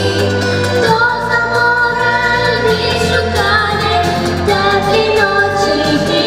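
A young girl singing a song into a handheld microphone over musical accompaniment, holding long notes that step from one pitch to the next.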